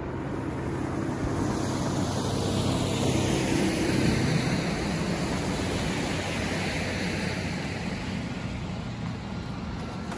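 Motorboat passing at speed, its engine a steady low hum that swells about four seconds in and then fades, over the rushing wash of its wake on the water.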